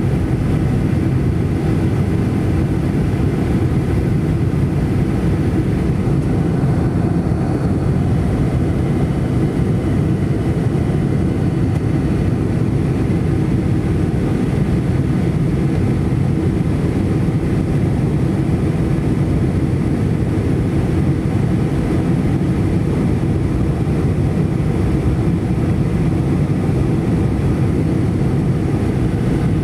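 Steady cabin noise inside a Boeing 737-800 descending to land: a low, even rumble of its CFM56-7B engines and the airflow past the fuselage, with a faint high whine above it.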